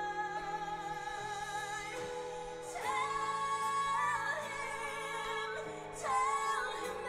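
Two women singing a slow ballad as a live duet over instrumental backing, their held notes swelling with vibrato; a louder vocal line comes in about three seconds in and again near the end.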